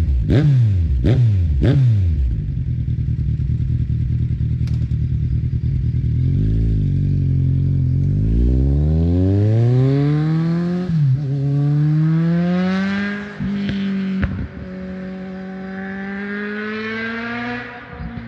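Kawasaki Z1000's inline-four engine through a LeoVince aftermarket exhaust. It gives a few quick throttle blips, settles to idle, then pulls away hard, its pitch climbing through several gear changes as it moves off and fades.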